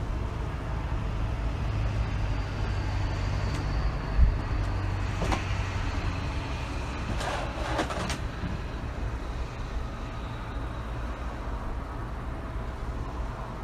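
Steady low outdoor rumble, with a single thump about four seconds in and a few brief faint sounds a little after.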